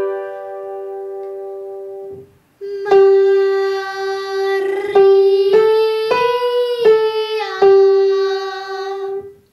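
An upright piano sounds a starting note that rings for about two seconds. Then a young girl sings the 'Maria' vocal exercise for the EE vowel in mixed voice, holding each note as it steps up a scale and back down, with a piano chord struck at each step.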